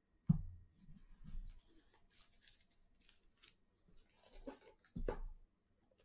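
Faint handling sounds at a table: a sharp knock, then crisp rustling and scraping, then a couple of low thumps.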